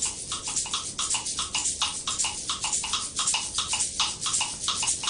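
Vervet monkeys giving rapid, chattering alarm calls, about six a second, at a bird of prey overhead.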